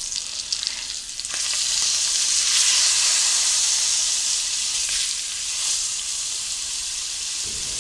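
Beef roast searing in hot oil and butter in a skillet, sizzling steadily. The sizzle swells louder about a second and a half in, while the roast is turned over with a fork onto its unseared side.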